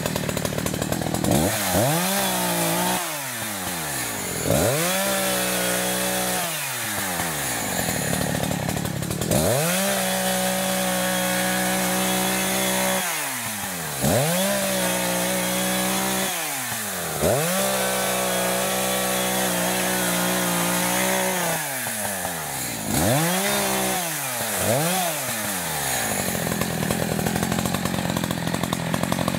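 ECHO CS-590 Timber Wolf two-stroke chainsaw, new and being broken in, cutting fallen branches. It revs about seven times from idle up to full throttle and drops back after each cut; the longest cut is about ten seconds in and lasts some three seconds. Near the end it settles to a steady idle.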